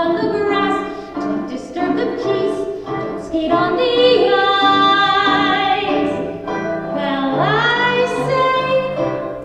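Singing of a show tune with accompaniment, with a long note held with vibrato in the middle and a new phrase sliding up near the end.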